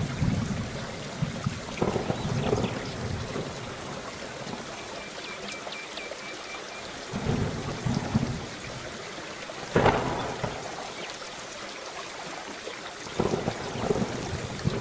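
Steady heavy rain with thunder: low rumbles swell and fade several times, and a sharp thunderclap cracks about two-thirds of the way through.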